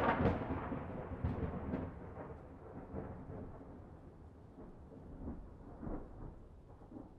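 Thunder from a local storm rumbling, with sharp crackles in the first second or two, then dying away over several seconds to near quiet.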